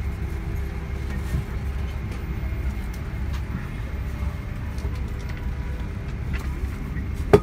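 Steady low rumble of cabin noise inside a Boeing 777-300 airliner, with faint clicks and one sharp knock near the end.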